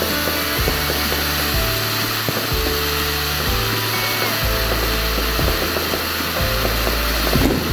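Cone fountain firework burning, its spray of sparks making a steady rushing hiss.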